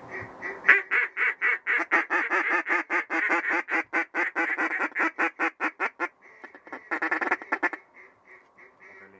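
Mallard-type duck quacking: a loud, rapid, even run of quacks at about four to five a second, a short burst around seven seconds in, then softer, slower quacks near the end.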